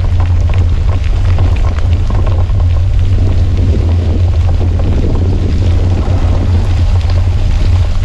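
Steady wind rumble on the microphone of a handlebar-mounted camera on a bicycle riding a wet gravel trail in the rain, with a continuous crackle of raindrops and tyres on wet gravel over it.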